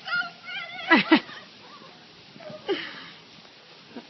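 A person's high-pitched excited squeals with no words, then two loud cries that drop sharply in pitch about a second in, and another falling cry with a breathy gasp later on: an emotional reaction to a surprise.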